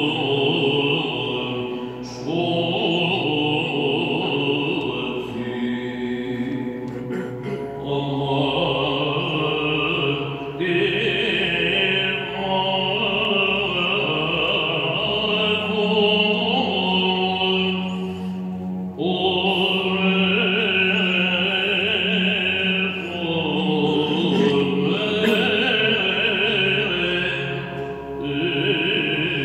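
A male cantor chants a Byzantine-style hymn in long melodic phrases. A steady low drone note, the ison, is held under the melody for several seconds in the middle. The phrases break off briefly for breaths.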